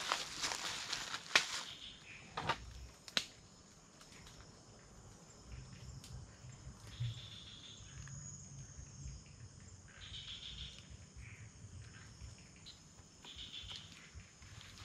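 Night rainforest insects: a steady high-pitched insect drone, with a shorter call repeating about every three seconds. A few sharp clicks and rustles come in the first three seconds.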